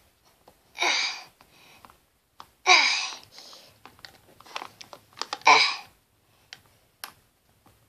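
A child's voice giving three short, breathy straining cries a couple of seconds apart, play-acting a mother pushing in labour, with small clicks and tissue-paper rustles from the dolls being handled in between.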